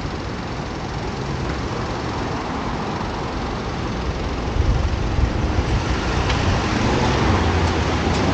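City road traffic: a steady wash of passing cars and other vehicles, with a deep rumble that gets louder about halfway through.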